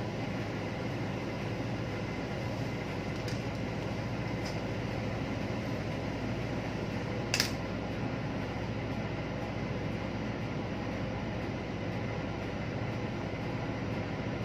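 Steady background drone of running machinery with a low hum. One sharp click about seven seconds in, and two faint ticks before it.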